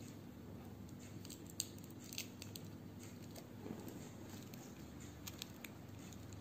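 Faint, scattered clicks and ticks of small fingers picking bits of shell off a boiled egg, a few at a time, over a low steady hum.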